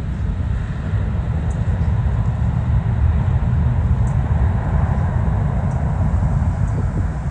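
Boeing C-32 (757-200) jet's twin turbofan engines at takeoff power as the aircraft climbs away: a steady, deep rumble with a hiss above it that swells slightly around the middle.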